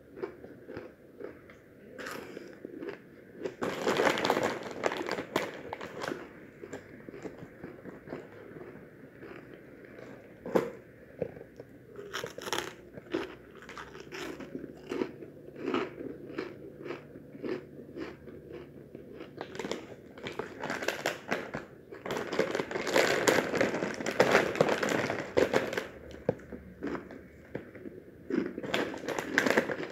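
Close-up crunching and chewing of crunchy corn puff snacks, in clusters of bites, with snack-bag plastic crinkling near the end.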